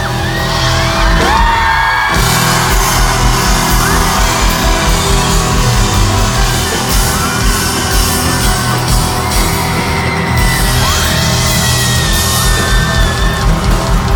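Loud live pop-concert music with a steady beat, over a crowd yelling and cheering.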